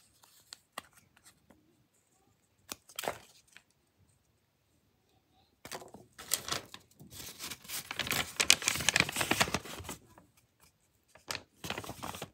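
Blind-bag packaging being torn open and crinkled by hand: a few short rustles, then several seconds of dense tearing and crinkling about halfway through, and a few more rustles near the end.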